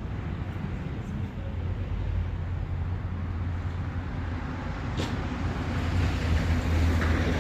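An engine running steadily with a low hum, and one sharp click about five seconds in.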